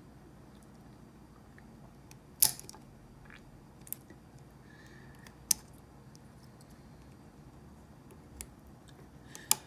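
About five sharp clicks and taps of small plastic and metal parts knocking together as a trimmer head's tensioned spring parts are worked into place, the loudest about two and a half seconds in.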